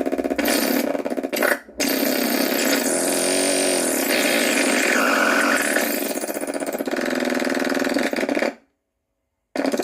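Noise Swash effects device self-oscillating with no input: a harsh, buzzing electronic noise with almost no deep bass, shifting in texture as it goes. It drops out for an instant at about two seconds in, and near the end it cuts off suddenly for about a second before starting again.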